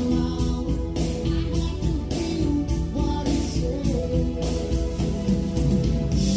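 A song with singing, guitar and a steady beat, played back through a Yamaha CA-810 integrated stereo amplifier and loudspeakers.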